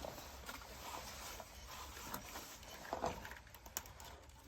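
Faint rustling and scraping of wire mesh screen being handled and bent to wrap around a heater's burn chamber, with a couple of small clicks about three seconds in.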